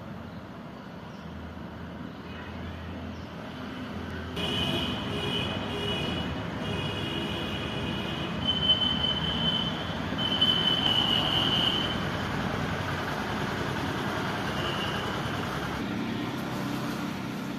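Outdoor background noise with a steady rumble like road traffic. From about 4 s in to about 15 s, high, thin chirping tones come and go over it.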